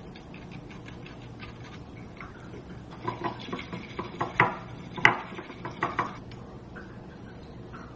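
Matcha powder sifted through a small mesh strainer into a glass bowl with light tapping, then a bamboo whisk brushing and knocking against the glass bowl in quick strokes from about three seconds in, with two sharper knocks in the middle.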